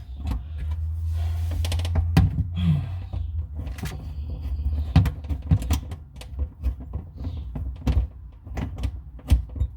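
Scattered knocks and clicks of hands and tools working on faucet mounting hardware under a bathroom sink, over a low rumble that fades after about three seconds.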